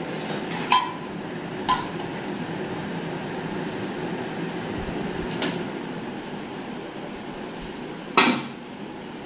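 Stainless-steel pots and lids clinking: two short ringing clinks about a second apart near the start, then a louder clank near the end, over a steady low rumble.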